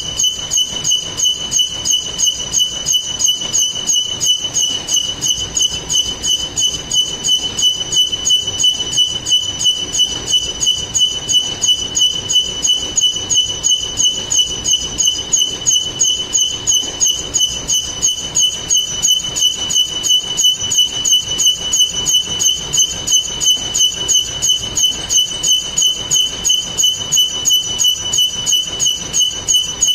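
Metalworking machinery running steadily, with a constant high whine and an even pulsing beat about two to three times a second.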